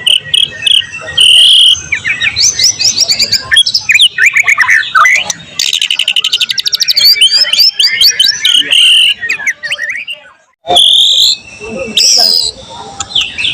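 White-rumped shama singing a loud, varied song of clear whistles, chirps and chatter, with a very fast trill about six seconds in and a brief pause about ten seconds in.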